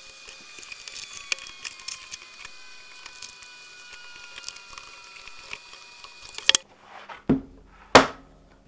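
Aluminium track saw guide rail sections being slid together on their connector bar: metal scraping with many small clicks and a faint ring. Near the end the rattling stops with a sharp click, followed by two knocks as the joint is pushed home.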